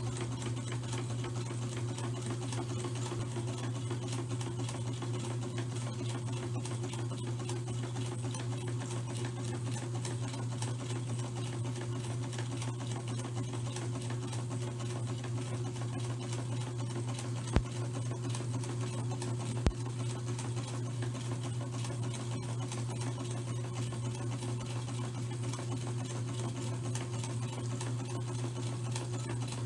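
Electric sewing machine running steadily as it stitches a length of fabric, a continuous even hum. Two sharp clicks about two seconds apart sound a little past halfway.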